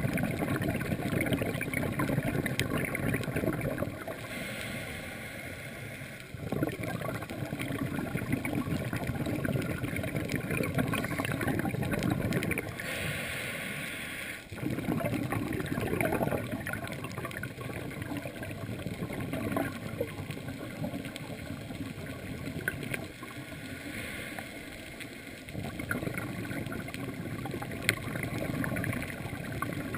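Muffled underwater noise through a camera housing: a diver's exhaled bubbles rumbling and gurgling in long bursts of several seconds, with quieter gaps between.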